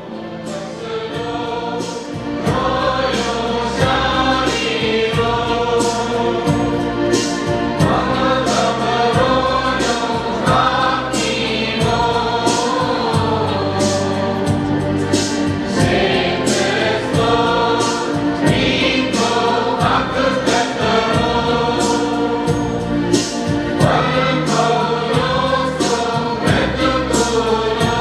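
Choir singing a hymn with instrumental accompaniment and a steady beat, swelling in over the first two seconds.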